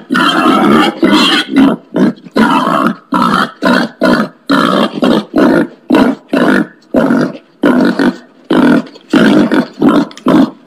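Wild pig giving a run of harsh, loud grunts, about two a second with short gaps between them.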